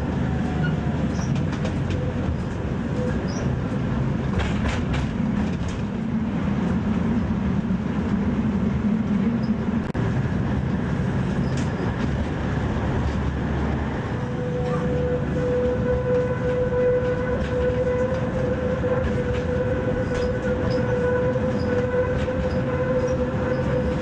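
Tram running along its track, heard from inside the car: a steady rumble of wheels on rails with a few clacks. From about halfway through, a steady whine sets in over the rumble.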